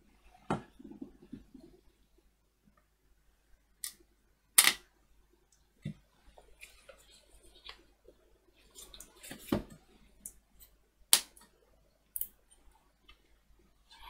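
Scattered clicks, taps and light knocks of a plastic solderless breadboard and a circuit board being handled and set down. The sharpest click comes a little over four and a half seconds in, with others near nine and a half and eleven seconds.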